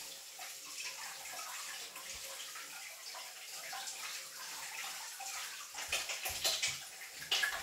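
Irregular wet swishing and splashing of hands, with a few louder bursts near the end.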